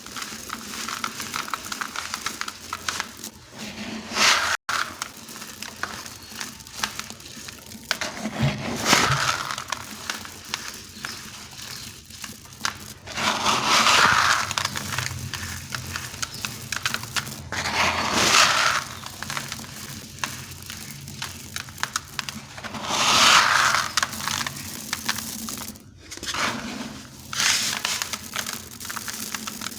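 Dry, dusty sand-cement blocks crumbling and being crushed, a steady gritty crackle with louder crunching swells every four to five seconds.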